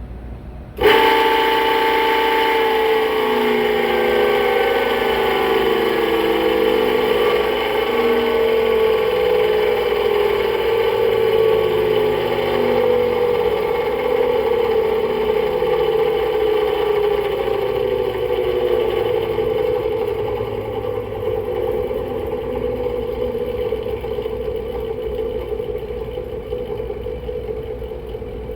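Air-handler blower motor starting with a sudden jump and running with a loud whining, grinding noise whose pitch drifts slowly down. It is the sign of failing motor bearings; the motor is due to be replaced before it locks up.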